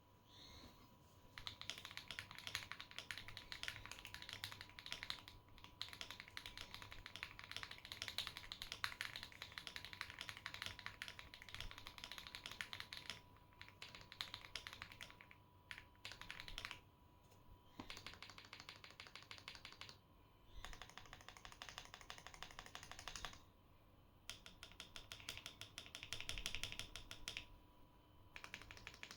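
Typing on a GAS67 custom mechanical keyboard with lubed Akko CS Rose Red linear switches, lubed stabilizers, a tempest tape mod and case foam. Rapid keystrokes come in long runs, broken by several short pauses.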